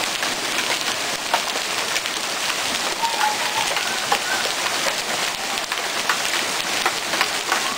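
Hail and heavy rain coming down: a steady hiss with many sharp, scattered ticks of hailstones striking.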